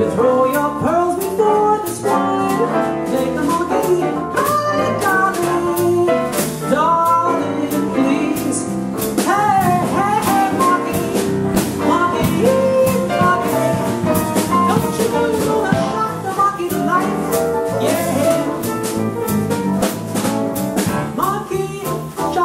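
Jazz band playing live, with piano, bass and electric guitar, and a man singing over them.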